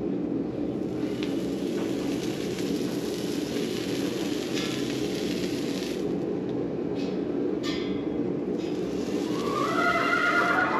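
A hot horseshoe hisses faintly as it is held against the horse's hoof during a hot fitting, over a steady low hum, with two sharp clicks around seven seconds in. Near the end a horse whinnies.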